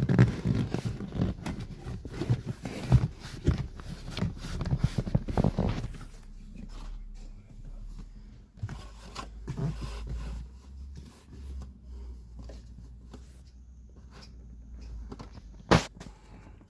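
Plastic battery cover and trim being handled and fitted back into place: irregular scraping, rustling and knocks for the first several seconds, then quieter handling over a faint low hum, with one sharp click near the end as a part snaps home.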